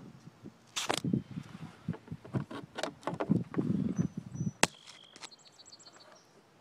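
Rustling and knocking of hands on a Sea-Doo jet ski's handlebar controls, then a sharp click as the yellow safety lanyard key is handled on its post. A short high electronic tone and a quick run of about seven high beeps follow from the craft's electronics.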